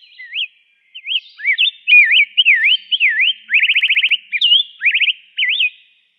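Rose-breasted grosbeak singing: a long warbled phrase of clear whistled notes sliding up and down, with a quick run of rapid notes midway, ending about six seconds in.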